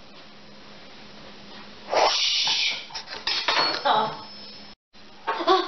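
Kitchen clatter: a knife scraping and knocking on a countertop as a baguette is cut, with a short metallic clink, starting about two seconds in after quiet room tone.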